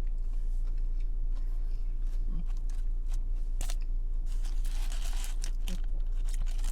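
Close-miked eating and food-handling sounds: scattered small clicks, taps and crinkles of food and wrapper being handled, with a steady low hum underneath.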